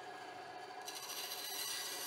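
Bandsaw running with its blade in a small piece of decking board; the quieter steady hum of the saw gives way to the hiss of the blade cutting again about a second in.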